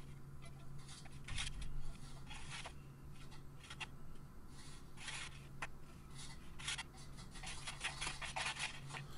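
Spatula scraping crispy baked sweet potato fries across a metal baking tray and sliding them onto a ceramic plate: a run of irregular short scrapes and rustles.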